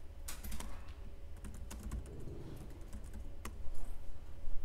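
Typing on a MacBook Pro laptop keyboard: a quick, irregular run of key clicks, with a few louder strokes near the end.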